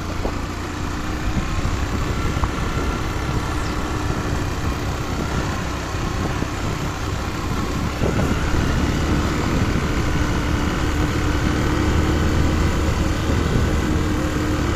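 Motorcycle engine running steadily at low speed while ridden along a sandy dirt street on half clutch. It gets a little louder about eight seconds in.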